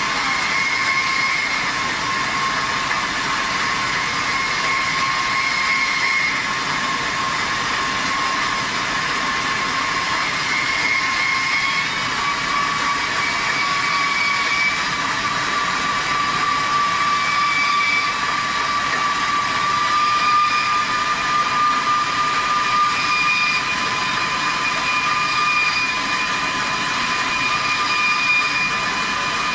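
Diamond wire saw dry-cutting a steel H-beam: a steady grinding hiss from the beaded wire running through the steel, with high whining tones that creep slowly upward in pitch in the second half.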